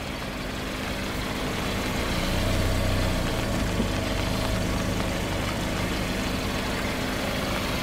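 Car engine running at low speed as the car creeps forward, a steady hum that swells a little partway through, with one light click about four seconds in.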